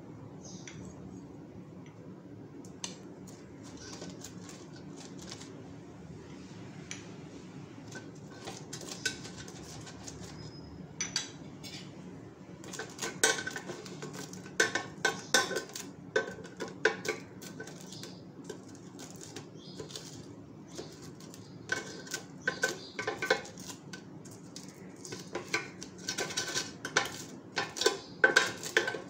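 Metal spoon clinking and scraping against the wire-mesh basket of an air fryer as oil goes onto the pakoras. The clinks come in scattered taps at first, then in quick clusters in the second half, over a faint steady hum.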